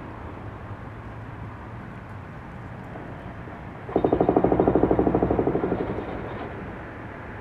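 Hydraulic concrete breaker on a Mantis demolition machine hammering the concrete top of a smokestack, heard from far below. About four seconds in, a rapid run of about ten blows a second starts suddenly, lasts about two seconds and fades out, over a steady low rumble.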